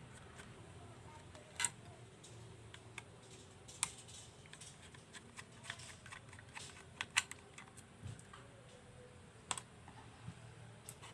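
Faint, scattered light clicks and taps of a small screwdriver and metal mounting bracket as the bracket is taken off a laptop hard drive.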